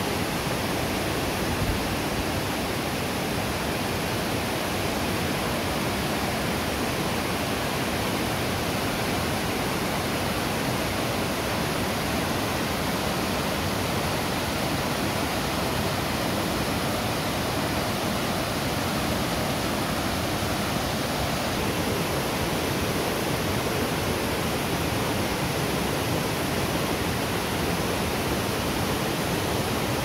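Water of a large, broad waterfall pouring down in a steady, unbroken rush.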